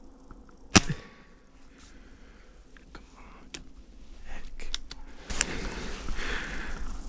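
.22 calibre air rifle firing a single pellet shot about a second in, one sharp crack. A few light clicks follow as the rifle is handled, then rustling near the end.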